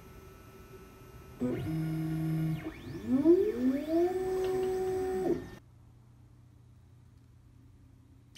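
Formlabs Form 2 resin 3D printer's motors moving the build platform during a print: a steady whine about a second and a half in, then a whine that rises in pitch, levels off and stops abruptly about five and a half seconds in.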